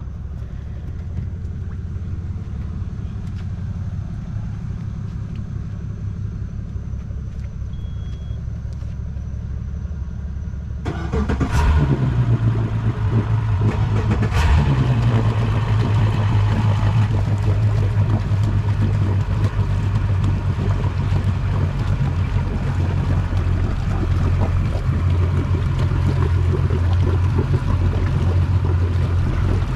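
Yamaha outboard engine running at idle: a steady low rumble that about eleven seconds in turns abruptly louder, with a strong steady low hum and two brief revs a few seconds apart.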